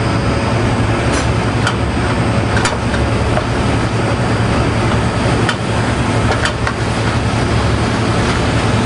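Steady noise of a commercial kitchen's running exhaust hood and gas burner, with a low hum. A few short clicks of a spoon against a stainless steel pot as ground beef is stirred.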